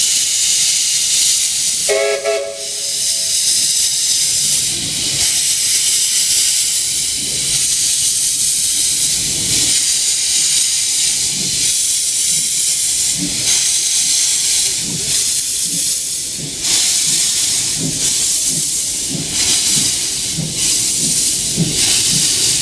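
Queensland Railways BB18¼ class steam locomotive 1079 moving off: a short whistle blast about two seconds in, then a loud steady hiss of steam from the open cylinder drain cocks over exhaust chuffs that gradually quicken as it gets under way.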